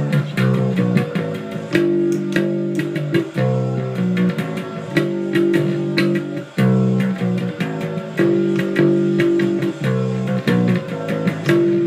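Electric bass guitar playing a driving punk-rock riff that alternates held notes with quickly repeated ones.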